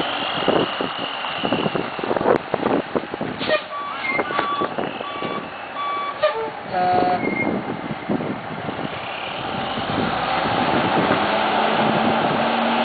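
Dump truck maneuvering with its engine running and a reversing beeper sounding a string of evenly spaced beeps from about four to six seconds in. The engine grows louder in the second half.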